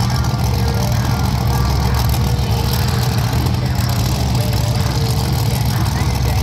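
Monster truck engine running steadily with a deep, even drone, not revving.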